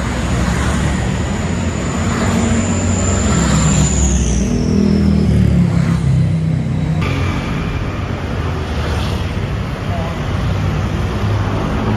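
Steady low vehicle rumble with background voices. A thin high whine glides downward about four seconds in, and the sound changes abruptly about seven seconds in.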